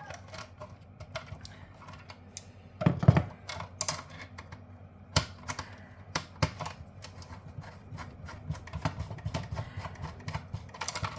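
Irregular small clicks, taps and knocks of hand tools working parts off a circuit board, with a louder knock about three seconds in.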